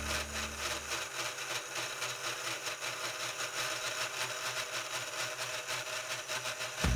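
Spindle of a 3018 Pro Max desktop CNC router running steadily. A low heavy drone from the cut stops about a second in, leaving a lighter machine hum, and the loud drone returns near the end as the tool bites again.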